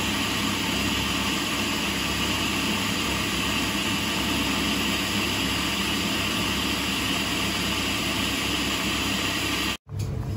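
Food processor motor running steadily at speed, churning a thin liquid batter of eggs, coconut milk and pandan juice; the sound stops abruptly near the end.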